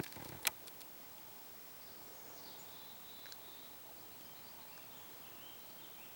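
Quiet forest ambience with faint, high wavering chirps coming and going. Two sharp clicks at the very start, about half a second apart, are the loudest sounds.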